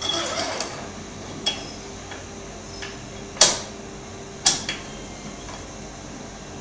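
A few sharp clicks and knocks from a motorcycle fork leg being handled in a fork work-station clamp, the loudest about three and a half seconds in and two more close together about a second later, over a steady faint hum.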